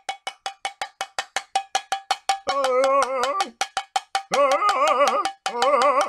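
Homemade music: rapid, even tapping on a ringing object, about five taps a second. About halfway through, a wavering pitched tune joins in short phrases.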